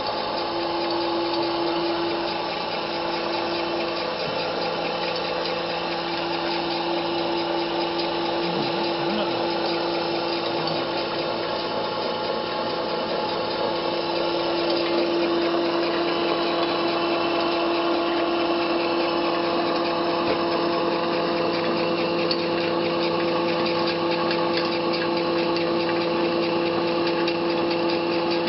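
Small flat-die feed pellet mill running steadily under load, pressing feed mash into pellets: a continuous machine hum with a strong steady whine, a little louder from about halfway through.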